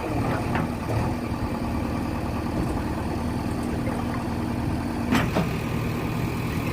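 JCB 3DX backhoe loader's diesel engine running steadily, with one sharp clank about five seconds in.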